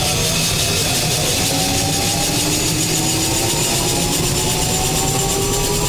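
Airbus EC175 helicopter's turboshaft engine and main rotor heard from inside the cockpit during engine start, a steady whine whose tones slowly rise in pitch as the engine and rotor gather speed.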